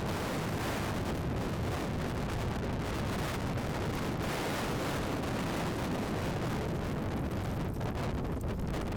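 Strong wind blowing on the microphone: a steady rushing noise with a heavy low rumble.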